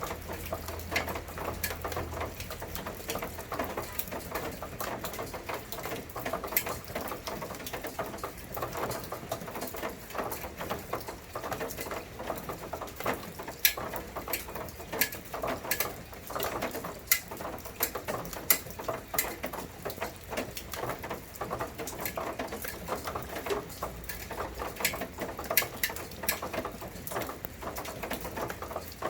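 Rain falling steadily, its drops pattering in a dense, irregular ticking, with sharper single drop hits here and there.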